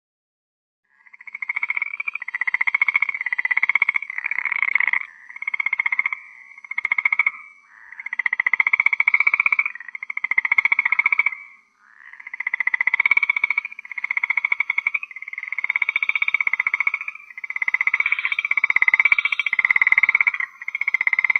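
Frog croaking: a string of fast-pulsed, rattling calls in bouts of one to three seconds with short gaps, starting about a second in.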